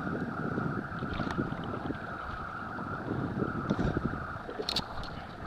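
Wind buffeting the microphone over a steady hum, with a few short sharp clicks, the loudest near the end.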